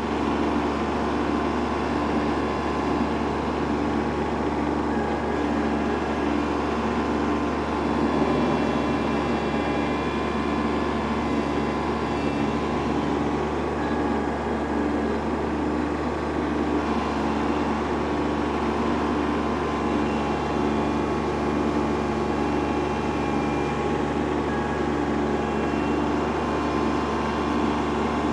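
Kubota B2601 compact tractor's three-cylinder diesel engine running steadily under load, driving a PTO stump grinder whose cutter wheel is grinding a stump and soil down below ground level. A regular pulsing throb runs through the steady engine note.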